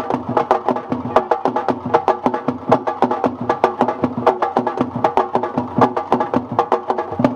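Fast Senegalese sabar drumming: a dense run of rapid, pitched hand-and-stick drum strikes without a break.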